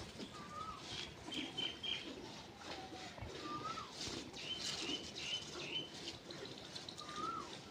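Birds calling: a short whistled note that rises and drops, repeated about every three and a half seconds, with runs of four or five quick, higher chirps in between. A sharp click sounds at the very start.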